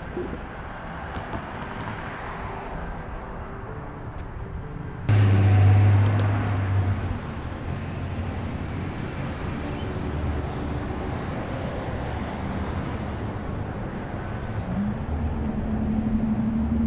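Street noise with a motor vehicle's engine running nearby, stepping up suddenly about five seconds in to a loud low hum, then settling to a steady drone, with another engine tone rising near the end.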